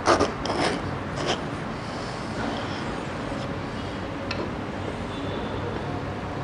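Knife cutting and prying into the thick spiky husk of a Musang King durian: a few short crunching scrapes in the first second or so. A low steady hum runs underneath.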